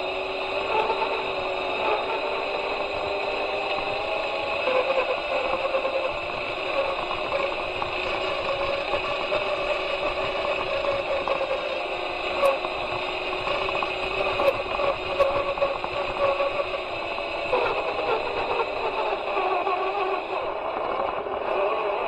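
Electric motor and gear drivetrain of a 1/6-scale RC Willys Jeep whining steadily as it drives over a dirt trail, as picked up by an onboard camera. The whine's pitch wanders slightly up and down, with a few faint clicks.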